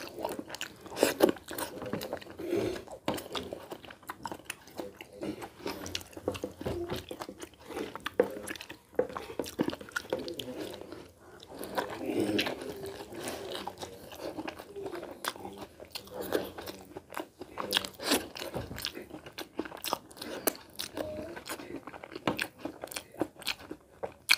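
Close-miked chewing and wet mouth clicks of a person eating rice and curry by hand, with irregular clicks throughout.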